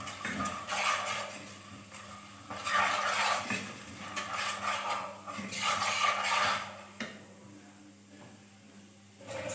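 A wooden spatula stirring and scraping spice paste frying in oil against the bottom of a metal pot, in three bursts of strokes, while the spices are being fried. The stirring stops about seven seconds in with a light knock as the spatula is set down.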